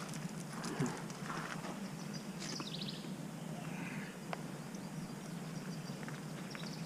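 Quiet riverside ambience with a steady low background, a few short bird calls near the middle, and scattered light clicks from handling fishing tackle.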